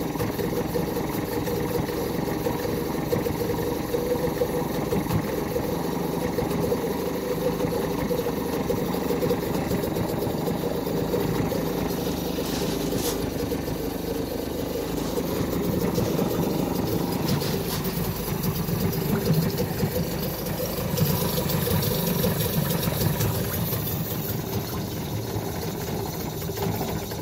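A 2003 Mercury 3.3 hp two-stroke outboard engine running steadily.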